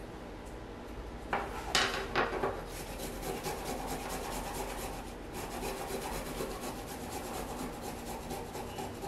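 Fresh ginger root being grated on a handheld flat grater: a quick, steady run of rasping strokes. It is preceded by a few knocks about a second or two in.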